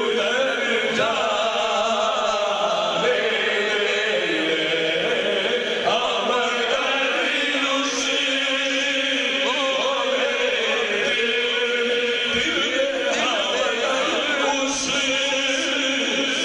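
A man's voice chanting a devotional kalam into a microphone, drawing out long, wavering held notes.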